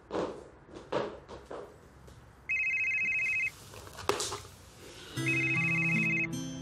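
Telephone ringing twice, a trilling electronic ring about a second long each time, the rings about three seconds apart. Music with low notes comes in with the second ring.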